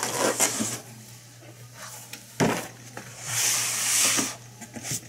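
Handling of a cardboard toy box and its packing: a sharp knock about halfway through, then about a second of rustling scrape, over a faint steady hum.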